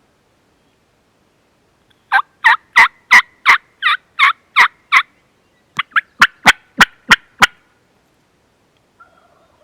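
Hen turkey call run by a hunter: a string of about nine loud, evenly spaced yelps, then after a short pause a quicker run of about eight sharp, clipped notes like cutting. A faint sound follows near the end.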